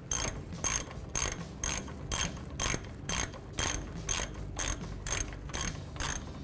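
Hand ratchet and 18 mm socket backing out a loosened brake caliper bracket bolt: the pawl clicks in short bursts on each back-stroke, about two strokes a second, thirteen in all.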